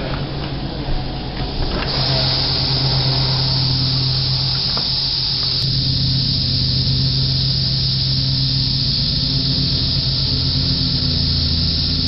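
Periodical cicadas in a dense chorus: a loud, steady, high-pitched hissing drone that grows louder about two seconds in and then holds. A low steady hum runs underneath.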